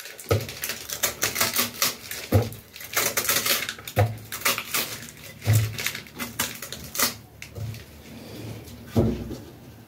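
Knife cutting away the skin of a pineapple: a run of crisp, irregular crunching and scraping strokes, with a few dull knocks.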